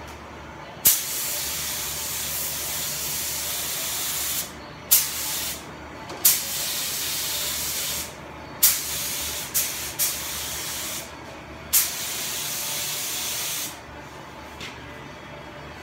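Compressed-air gravity-feed paint spray gun hissing in repeated bursts as the trigger is pulled and released, about seven times, each burst opening with a sharp puff of air, laying paint onto a car body.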